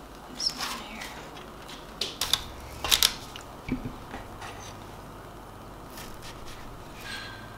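Scattered light clicks and taps of a metal star-shaped cookie cutter knocking on a wooden tabletop as cookies are cut from dough, with the loudest cluster of clicks between about two and three seconds in.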